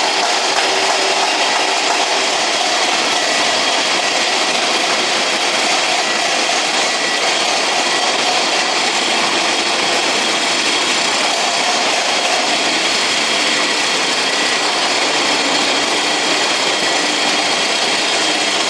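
Excavator running steadily, engine and hydraulics giving a dense, even mechanical noise with faint whining tones coming and going.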